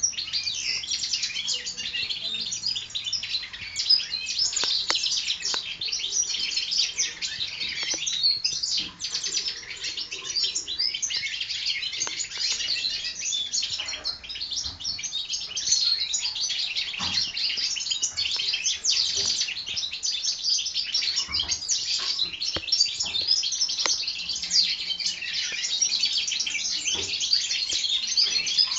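Young goldfinch hybrids singing in their cages: a fast, continuous, high twittering song with several birds overlapping.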